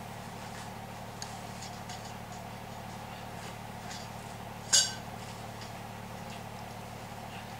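Greenhouse frame poles and connectors being handled and fitted together: faint light clicks and taps, and one sharp ringing clink about five seconds in, over a steady low hum.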